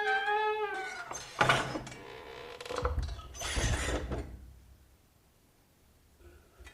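Squeaky door hinge creaking in a gliding, high squeal that fades within the first second. A sharp knock follows about a second and a half in, then two longer rough creaks.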